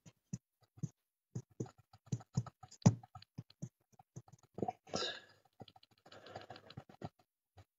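Quiet, irregular light clicks and taps, like typing, with a short breathy rush about five seconds in and a soft rustle after it.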